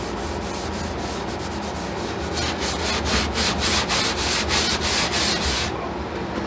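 Pad of 0000 steel wool, wetted with diluted ammonia window cleaner, rubbed back and forth along the grain on the old finish of a quarter-sawn oak shelf to break down grease and dirt. The quick scratchy strokes get louder about two seconds in and stop shortly before the end.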